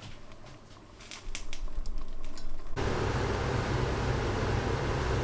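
A few faint clicks, then, from about three seconds in, a steady rushing noise over a low electrical hum from a pot of greens cooking on an electric hob.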